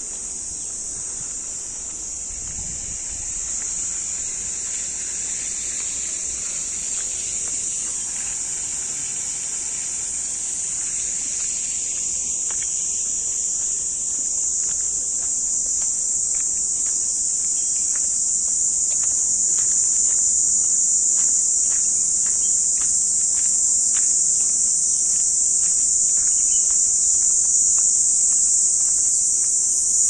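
A steady, high-pitched insect chorus that grows gradually louder.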